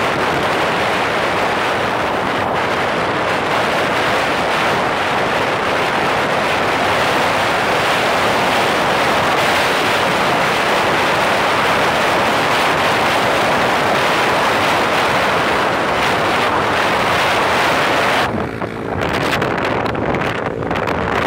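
Heavy wind rushing over the microphone of a phone held by a passenger on a moving motorcycle, a loud, steady rush. About 18 seconds in it turns duller and muffled as the phone is turned against the rider's helmet.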